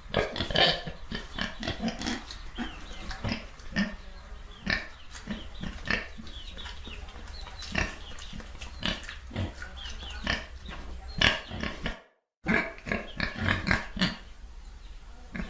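Pigs grunting and oinking in quick, irregular short calls that overlap throughout. The sound cuts out completely for about half a second roughly twelve seconds in, then the grunting resumes.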